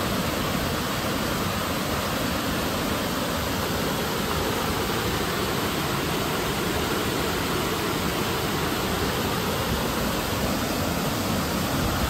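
Water pouring steadily down a stepped stone cascade waterfall, a continuous even rush with no breaks.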